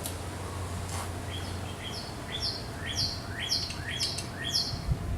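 A bird singing a run of about eight quick repeated chirps, roughly two a second, starting a little over a second in.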